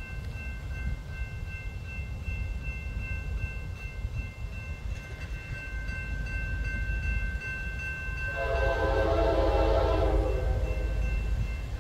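Norfolk Southern freight locomotive's air horn sounding one long chord-like blast from about eight seconds in, lasting nearly three seconds, over the steady low rumble of the train. A faint, steady high tone runs beneath it.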